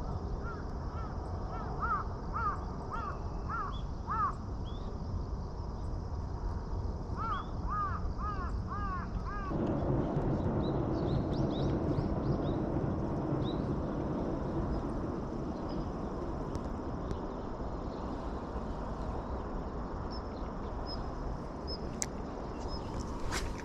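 A crow cawing in two quick series of harsh calls. About nine seconds in, a steady rushing noise swells in and is the loudest sound, with faint high chirps of small birds over it.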